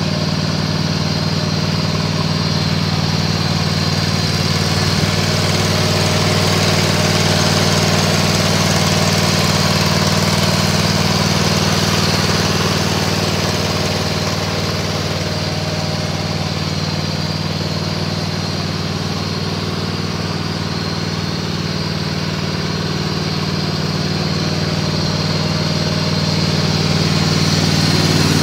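John Deere Z425 zero-turn mower's engine idling steadily, an even low-pitched running note that holds the same pitch throughout.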